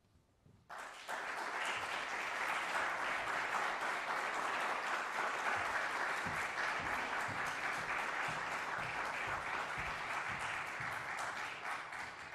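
Audience applauding, breaking out about a second in and dying away near the end.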